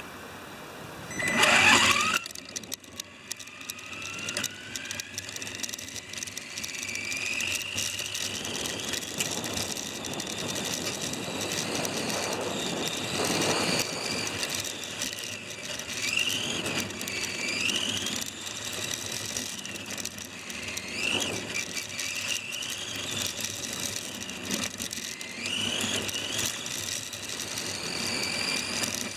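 Electric motor and gears of a Tamiya F101 radio-controlled F1 car whining as it drives, heard close up from a camera mounted on the car, the pitch rising again and again as it speeds up. A short loud burst comes about a second and a half in.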